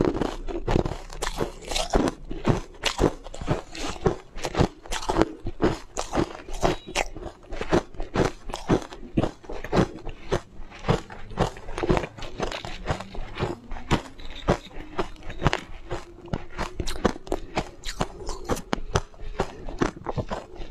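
Coloured ice blocks being bitten and chewed: a steady run of sharp crunches, several a second.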